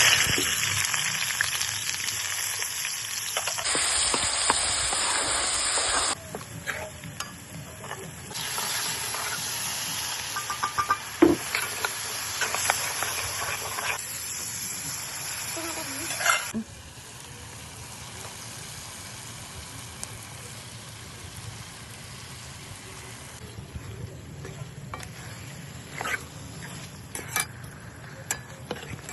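Chicken hearts frying and sizzling in a pan while being stirred. The loud sizzle drops off sharply a little past halfway, leaving a quieter sizzle with scattered clicks of the utensil near the end.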